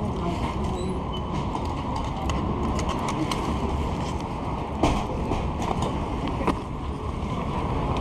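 Ride noise from an e-bike on city streets: a steady rushing of wind and road noise, with scattered clicks and knocks from the bike, one louder knock about five seconds in.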